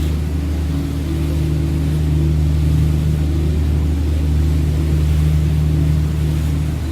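Sightseeing river cruise boat's engine running with a steady low drone, with an even hiss of water and air over it.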